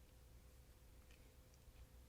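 Near silence: room tone with a faint steady hum and a few faint small clicks.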